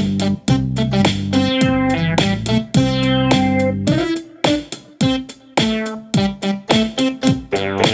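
Instrumental background music: sustained low notes and keyboard chords over a quick, steady beat, with the bass dropping out briefly about halfway through.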